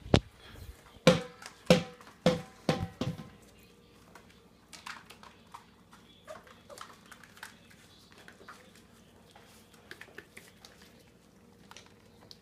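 Australian Shepherd puppies playing around an exercise ball on a foam mat: a loud bump, then about five sharp, short sounds in quick succession, then faint light taps and scuffles.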